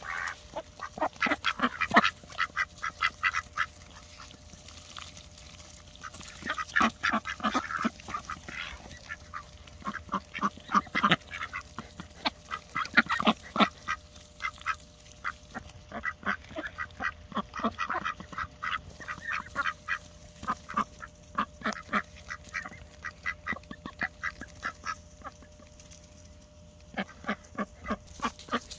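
Mallard ducks feeding on peas from the grass: bursts of quick clicks and snaps from their bills as they peck, with a few quacks mixed in.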